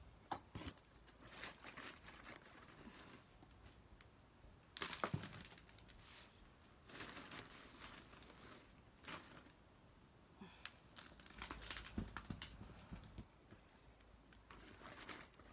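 Plastic bag of potting mix rustling and crinkling as it is handled, with potting soil scooped and dropped into a plastic pot. Irregular rustles, the loudest about five seconds in.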